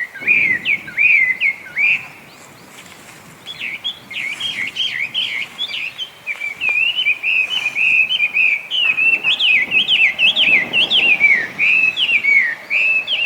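Chinese hwamei (Garrulax canorus) singing a loud, fast run of varied whistled phrases. The song pauses for about a second and a half near the start, then resumes and runs on without a break.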